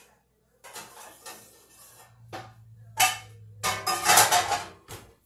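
Metal baking pans clattering and scraping as they are pulled out of an oven and handled, in several separate bursts with the loudest clatter about four seconds in. A faint low hum runs underneath from about two seconds in.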